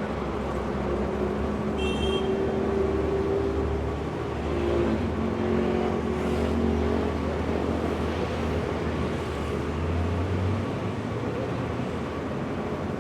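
Street traffic: engines of passing road vehicles running over a steady low rumble. The engine sound swells between about four and eleven seconds. A brief high squeak comes about two seconds in.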